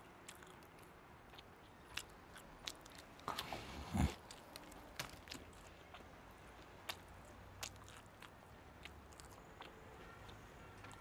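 A person biting into and chewing a sandwich: small scattered crunches and clicks of chewing, with one louder low sound about four seconds in.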